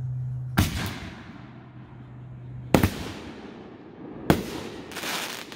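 Fireworks going off: three sharp booms about two seconds apart, each trailing off in an echo, the second one doubled, followed by a short noisy crackling burst near the end.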